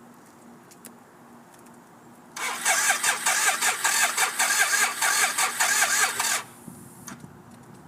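1991 BMW K75S three-cylinder engine cranking on its electric starter with fast, even pulses, on full choke, without catching. It begins about two seconds in, runs for about four seconds and cuts off suddenly: a no-start that the owner wonders may be a dead battery.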